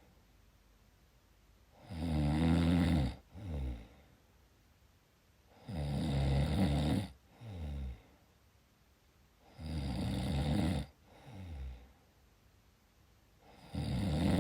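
Snoring in a steady rhythm: four loud, rattling snores about four seconds apart, each followed by a shorter, softer breath sound.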